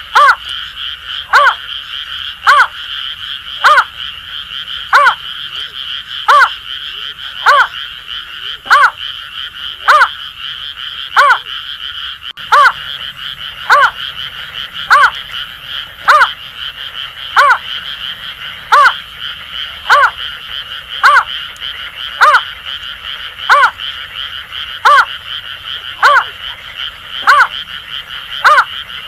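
Greater painted-snipe giving a long, even series of short hooting notes, about one every 1.2 seconds, over a continuous high-pitched chorus of Asian grass frogs.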